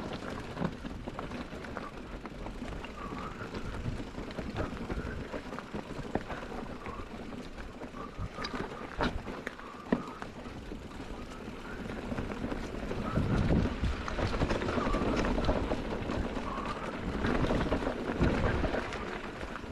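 Specialized Kenevo e-mountain bike rolling over a rough trail: tyres on stones and dirt, with the bike rattling and knocking. The rumble gets louder and heavier about twelve seconds in.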